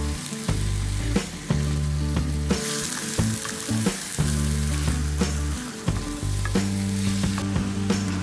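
Chicken pieces and sliced onions sizzling in oil in a karahi, stirred with a wooden spatula that knocks and scrapes against the pan. Background music with a low bass line underneath.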